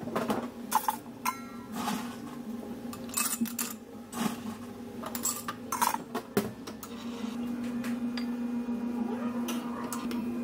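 Ice cubes scooped and dropped into two glass tumblers: a run of clinks and clatters. From about seven seconds in, a steady machine hum.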